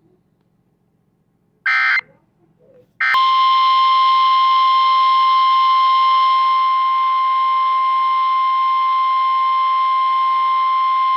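Near silence, then a brief burst of digital data and, about three seconds in, a single steady alert tone held for about eight seconds. This is the NOAA Weather Radio warning alarm tone announcing an incoming warning broadcast.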